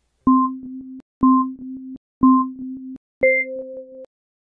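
Interval-timer countdown beeps: three lower electronic beeps a second apart, then a fourth, higher beep that marks the end of the countdown and the start of the next interval.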